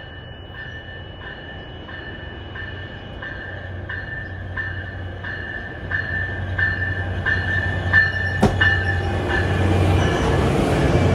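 NJ Transit ALP-45A locomotive arriving at a station platform, its bell ringing steadily about one and a half strokes a second and growing louder as it approaches. A sharp click comes about eight and a half seconds in, and the engine rumble and rail noise swell near the end as the locomotive passes close by.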